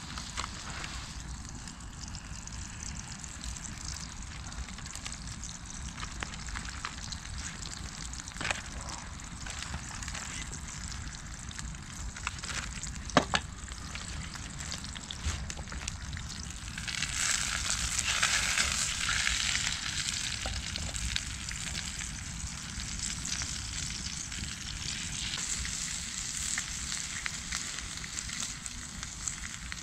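Sausages frying in a pan over a campfire, sizzling steadily and swelling louder for a few seconds just past halfway. The pan is running too hot and the food is catching. Two sharp clicks cut through, the louder one a little before halfway.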